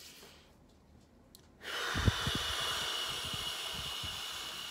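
A person's long, forceful exhale blown out through pursed lips, starting abruptly about a second and a half in and lasting about four seconds, with a few low puffs of breath hitting the microphone at its start.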